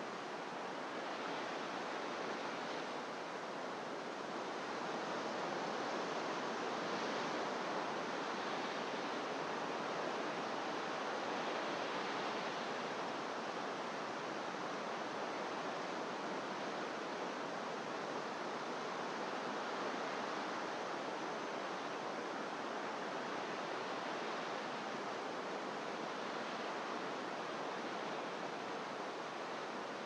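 Distant ocean surf breaking on rocks below a cliff: a steady, even wash that swells slightly louder a few seconds in.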